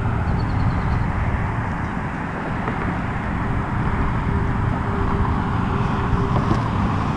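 Steady outdoor background noise, a rumbling hiss with no distinct events, with a faint steady hum for a few seconds in the middle.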